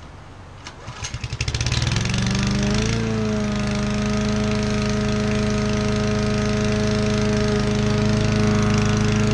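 Honda HRU216D self-propelled lawn mower's single-cylinder four-stroke engine starting. A quick run of firing pulses about a second in builds as it catches, and its pitch rises for about a second. It then runs steadily at speed.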